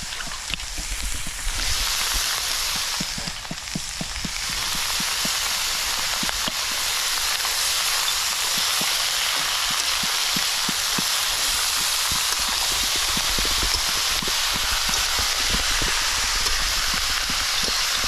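Pork head meat frying in hot oil in a pan, sizzling with many small crackles. The sizzle grows a little louder and steadier about four seconds in.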